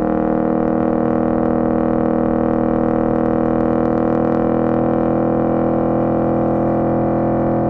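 Modified 1970 Chevy Chevelle's 486 cubic inch V8 running at a steady engine speed through 3-inch Flowmaster exhausts, giving an even, unchanging pitched tone.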